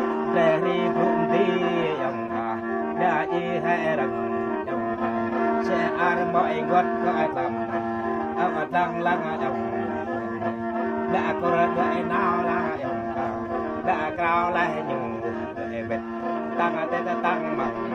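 Gourd mouth organ playing, a free-reed instrument with long bamboo pipes: a steady drone of held notes under a shifting melody.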